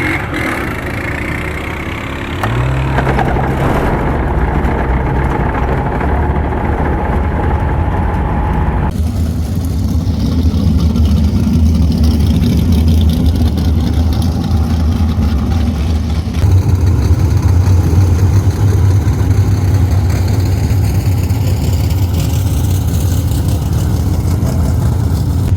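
Sprint car engines running with a steady low drone, in several clips cut together; the sound changes abruptly about 9, 16 and 22 seconds in.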